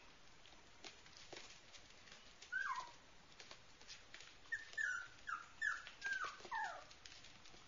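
Puppies yipping in play: one short high yip about two and a half seconds in, then a quick run of six more, each falling in pitch.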